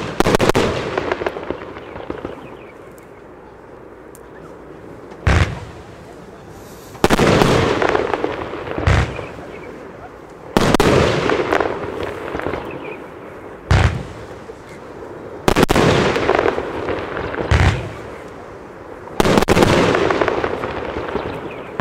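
Lesli Tokyokido compound fireworks cake firing: a sharp bang, a lull of about five seconds, then a loud bang every two seconds or so, several of them trailed by a hissing wash of noise as the shells burst.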